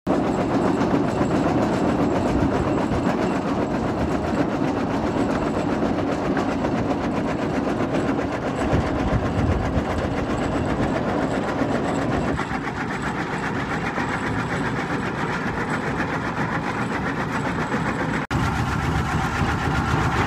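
Belt-driven plastic scrap shredder, an electric motor turning the cutter, running while used drip-irrigation pipes are fed in and chopped into chips: a loud, dense, continuous grinding clatter. The sound changes character about twelve seconds in and breaks off for an instant near the end.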